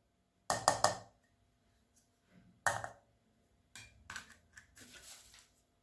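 Kitchen utensils and containers knocking and clattering in short bursts, about half a second in and again near three seconds in. Lighter clicks and a brief rustle follow near the end.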